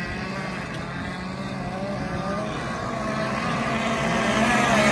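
Several radio-controlled racing boats running flat out. Their engines make high whines that waver in pitch as the boats race, and the sound grows louder in the last couple of seconds as the boats come closer.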